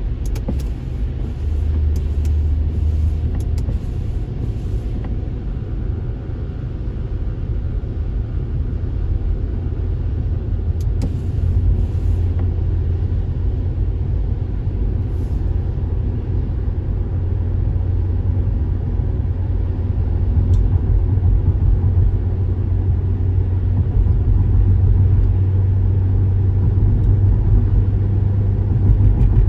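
Steady low rumble of road and engine noise heard inside a Mercedes-Benz car driving on a wet road, growing slowly louder. A few faint clicks come in the first five seconds and again around eleven seconds in.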